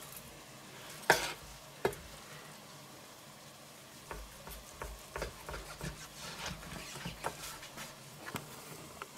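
Carving knife cutting through a crusty, cheese-topped pork roast on a wooden cutting board: two sharp knocks about a second in, then from about four seconds on a run of small irregular taps and scrapes as the blade saws through the crust.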